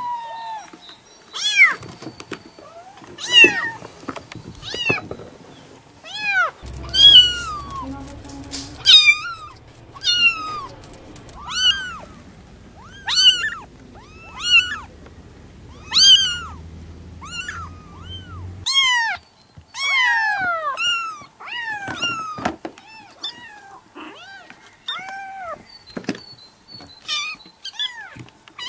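Young kittens meowing over and over: high, thin calls, about one a second, many rising then falling in pitch. A low steady background rumble runs under the calls through the middle of the stretch.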